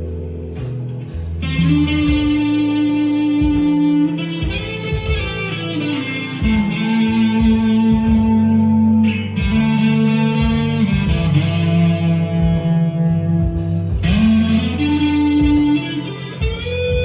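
Squier Deluxe Stratocaster electric guitar through overdrive playing a slow lead of long held notes, several bent upward in pitch, over a backing track with bass and drums.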